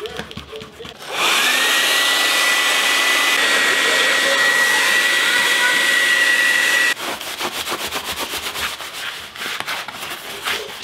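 Heat gun switched on about a second in, its fan spinning up to a steady whine with a rush of air, melting beeswax into a leather sheath. It cuts off suddenly about seven seconds in, and a paper towel is then rubbed over the waxed leather.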